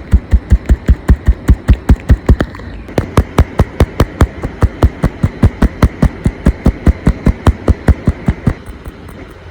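A knife chopping quickly on a cutting board: rapid, even strokes at about six a second, pausing briefly twice.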